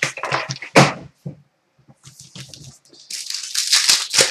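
A few sharp clicks and knocks of cards and packaging being handled, then, about three seconds in, a second or so of crinkling and tearing as an Upper Deck hockey card pack wrapper is ripped open.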